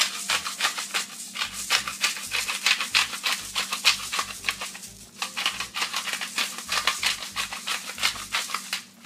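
Pepper shaken from a shaker bottle: quick, repeated rattling shakes, several a second, with a short break about halfway.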